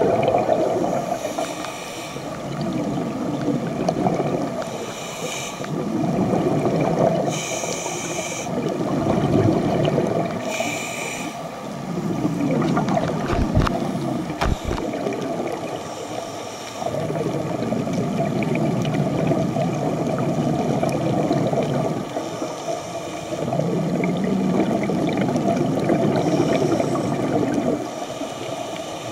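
A scuba diver breathing through a regulator underwater: a short hiss on each inhalation, then a long bubbling gurgle on each exhalation, repeating every few seconds.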